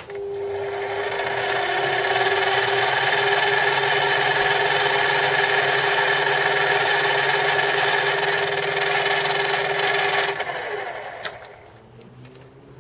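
Lathe running while something is rubbed against the spinning bronze bush, a steady hissing scrape over the motor's hum, to finish the outside for a press fit. About ten seconds in the rubbing stops and the lathe is switched off and spins down, its tone falling, with a single click near the end.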